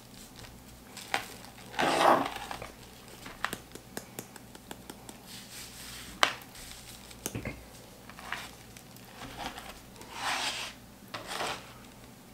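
Hands sprinkling a coarse dry rub over a raw bone-in prime rib roast and rubbing it in on a cutting board: a few short rustling patches, with scattered light taps and one duller knock.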